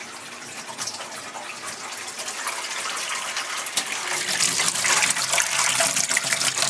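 Water running from an open hot-water tap, growing louder, with many small sputtering clicks as air is pushed out of the newly filled line.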